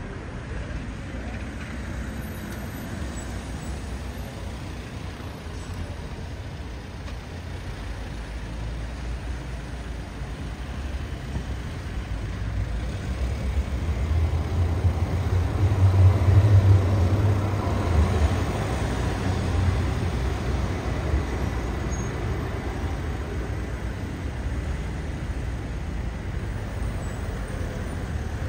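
Street traffic, with the low sound of a heavy vehicle passing close by. It builds to its loudest just past halfway and then fades.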